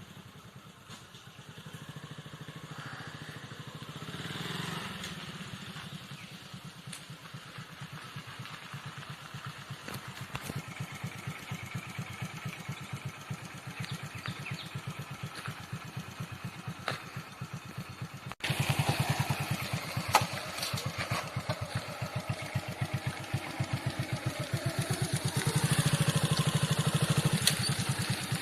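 A vehicle engine running with a steady, rapid pulsing beat. It gets abruptly louder about 18 seconds in.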